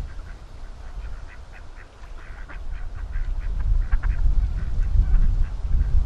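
A flock of ducks quacking, a busy run of short calls, thickest in the middle, with wind rumbling on the microphone and growing louder near the end.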